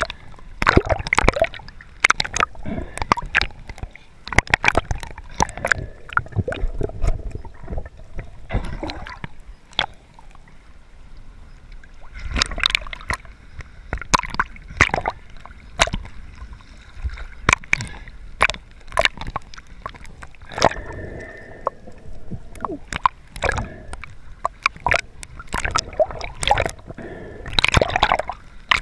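Seawater sloshing and splashing around a camera held at the surface as it dips in and out of small waves: irregular slaps and gurgles.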